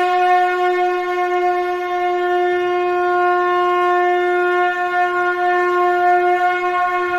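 A conch shell (shankh) blown in one long, steady note.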